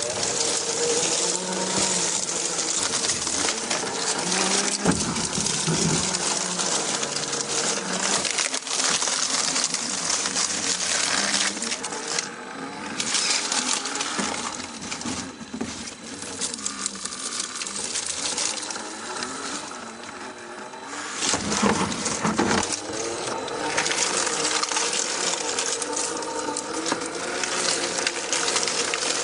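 Traxxas TRX-4 RC rock crawler's electric motor and gear drivetrain whining, the pitch rising and falling with the throttle, mixed with clicks, rattles and crunching of the tyres and chassis working over rock and dirt. It eases off briefly about two-thirds through.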